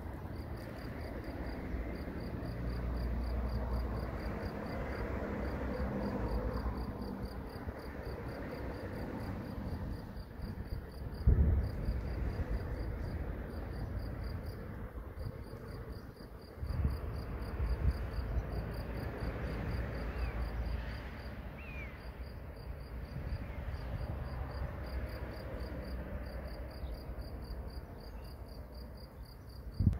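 A cricket chirping in a fast, even series of high pulses, over low wind rumble on the microphone, with a short loud knock about eleven seconds in.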